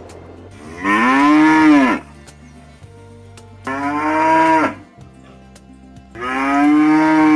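Zebu cattle mooing three times, each moo about a second long, its pitch rising and then falling, over faint background music.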